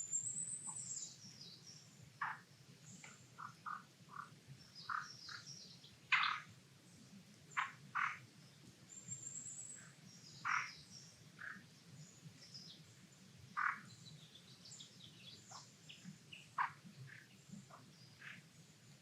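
Frogs calling in short, irregular croaks, one every second or two, with small birds chirping and trilling high above them.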